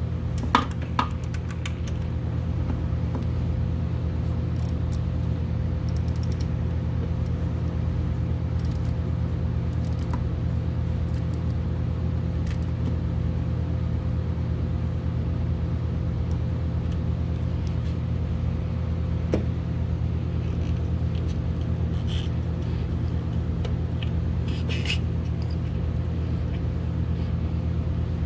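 Steady low mechanical hum running unchanged throughout, with a few light clicks and taps from handling small parts, a pair of them about half a second in.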